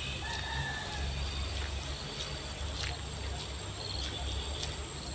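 Steady high-pitched insect chorus, with a few brief bird chirps and scattered small clicks over a low rumble.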